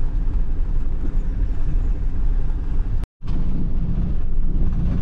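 Mercedes-Benz Sprinter motorhome on the move: a steady low rumble of engine and road noise, broken by a split-second dropout about three seconds in.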